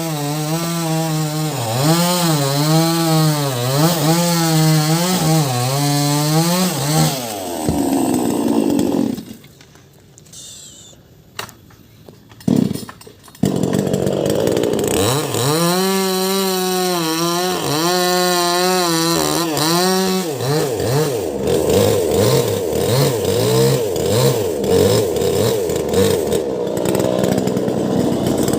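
Senso two-stroke chainsaw with a 16-inch bar running at high revs, its pitch wavering up and down about twice a second as the load changes. The sound drops out for about four seconds in the middle, with a few knocks, then the saw comes back and runs on steadier and rougher.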